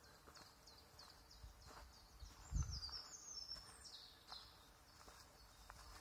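A songbird singing: a run of repeated high, downward-slurred notes that speeds up and ends in a higher descending flourish. Footsteps on the woodland floor, with one heavier thud about two and a half seconds in.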